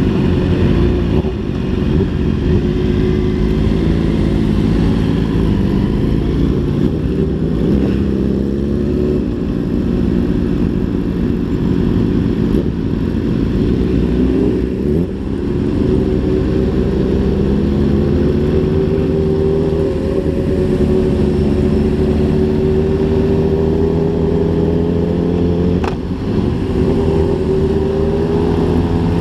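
Sport motorcycle engine heard from on board, running under way, its pitch climbing with the throttle and briefly dropping about halfway through and again near the end, as at gear changes.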